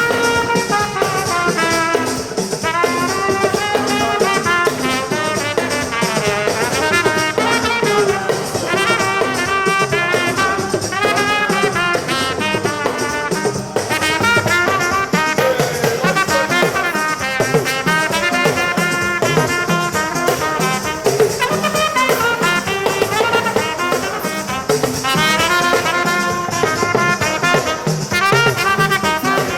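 Upbeat music led by brass instruments such as trumpet, with a drum kit keeping a beat.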